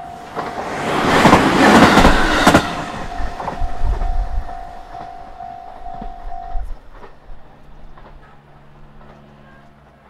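Japanese level-crossing warning bell ringing in a steady repeating ding while a train rushes past on the JR Gotenba Line, loudest about one to three seconds in, with a few wheel clacks over the rail joints as it goes. The bell stops about six and a half seconds in, and a low hum follows as the crossing barriers lift.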